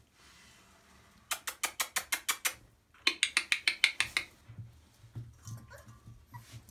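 Two runs of rapid, evenly spaced clicks, about eight a second and the second run louder, like mouth clicks or kissing noises made to call puppies. They are followed by soft low thumps and a faint short squeak.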